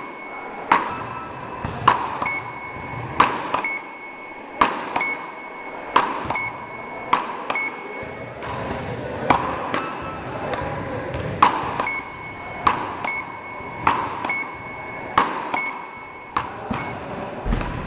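Beach-racket rally: paddles strike the ball back and forth in an even rhythm, about three hits every two seconds. Each hit is followed by a short electronic beep from the hit-measuring machine.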